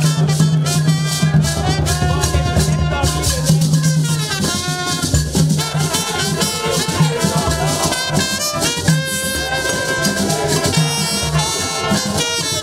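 Live festive music: group singing over a hand drum and a shaken rattle keeping a brisk, steady rhythm.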